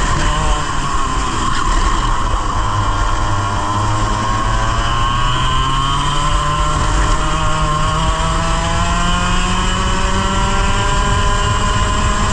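Onboard sound of a 100cc racing kart engine under load. Its pitch climbs steadily for several seconds as the kart accelerates, then holds high.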